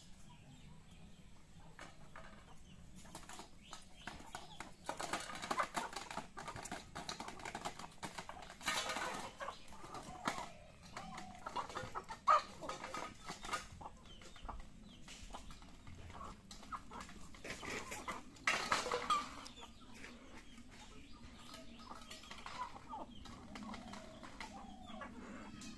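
Chickens and roosters clucking in a yard, with many small clicks and scuffs and a few louder short calls.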